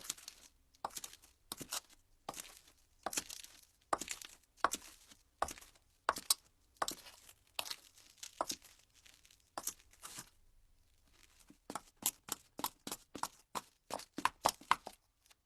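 Foley footsteps in women's high heels on a gritty surface, each step a crisp crunching click, at an even walking pace that turns into quicker, closer steps about three-quarters of the way through.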